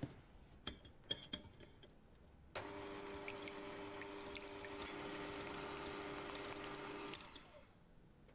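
A few light clicks, then an electric hand mixer starts about two and a half seconds in. It runs steadily with a steady hum, whisking egg whites to a froth in a glass bowl, and winds down shortly before the end.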